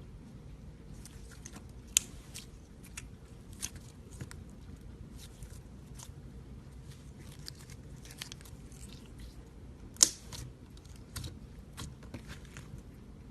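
Slime being squished and pulled by hand, giving off irregular sticky clicks and little pops, with the sharpest pops about two seconds in and about ten seconds in.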